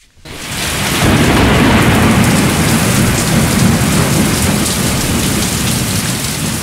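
Heavy rain with thunder rumbling, a loud dense rush that swells in within the first second and slowly eases off toward the end.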